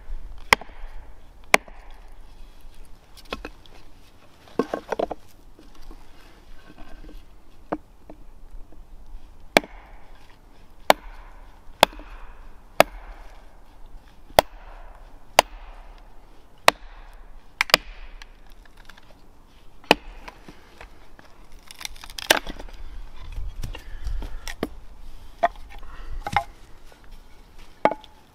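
Hatchet chopping and splitting small firewood against a log: about twenty sharp wooden knocks at an uneven pace, roughly one a second.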